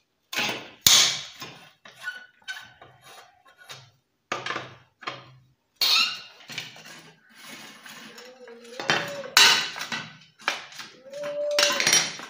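Irregular metal clinks and clanks of a 12 mm T-wrench being worked on the nuts of a motorcycle silencer's steel mounting bracket, with the bracket and tool knocking together. There are two short squeaks in the second half.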